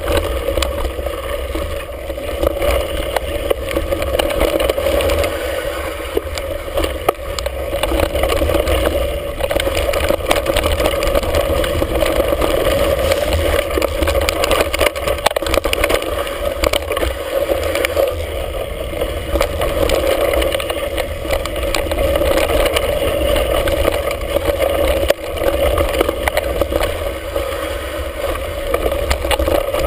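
Mountain bike descending a rough dirt singletrack at speed: a continuous rattling rumble of tyres and bike over the trail, with many small knocks, picked up by a camera mounted on the bike.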